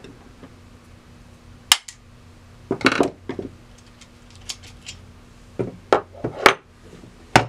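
Sharp metal clicks, clinks and knocks from a Victor 77 gumball vending machine mechanism being handled and worked apart as its handle is removed. They come as single hits and short clusters, a few around the middle and several more near the end.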